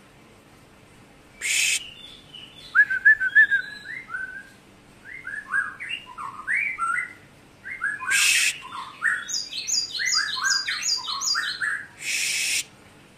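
A caged cinereous tit (gelatik batu) sings a varied run of short whistled and chirping notes, some rising and some falling, speeding up into a fast run of paired high and low notes. The song is broken by three short, harsh, noisy bursts.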